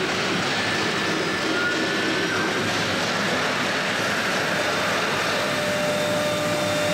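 Three-spindle CNC router with air-cooled spindles running, a steady loud machine noise with faint whining tones over it; a lower whine comes in a little past five seconds in.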